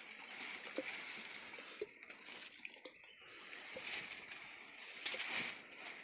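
Soft water splashing and sloshing from a hand moving in a shallow, murky stream, with rustling of reeds and leaves, a little louder about five seconds in.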